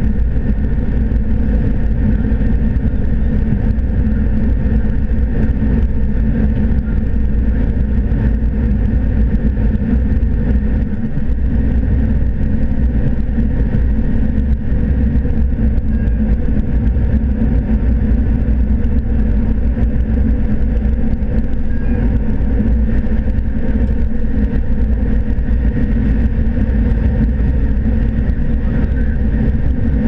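Steady drone of a John Deere S680 combine's 13.5-litre six-cylinder diesel and threshing machinery while harvesting corn, heard from inside the closed cab. Several steady tones sit over a heavy low rumble.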